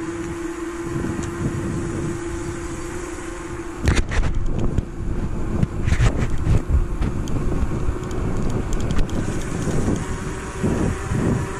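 Wind buffeting the microphone of a camera on a moving bicycle, heard as a loud, gusty low rumble mixed with tyre and road noise. A steady hum runs under it for the first few seconds and comes back near the end.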